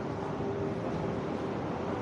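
Steady background noise of a large railway station concourse, an even rumble and hiss with a faint steady hum.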